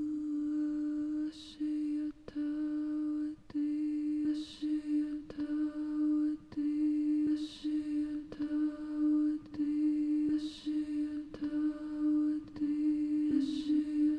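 A woman's voice humming a single sustained note into a handheld microphone, a chant-like drone that barely changes pitch and breaks off briefly about once a second. A short soft hiss recurs about every three seconds.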